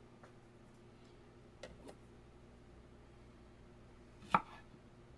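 Kitchen handling sounds as a cutting board is cleared: two faint knocks about a second and a half in and one short, sharper knock a little after four seconds, over a faint steady hum.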